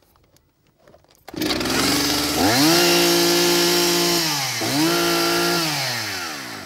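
Petrol chainsaw starting up about a second in and revved in free air: the engine climbs to a high pitch, dips briefly, revs up a second time, then falls away near the end.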